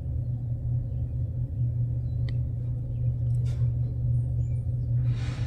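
A steady low rumble, with a short click a little past two seconds in and two brief soft hissing rustles, one past the middle and one near the end.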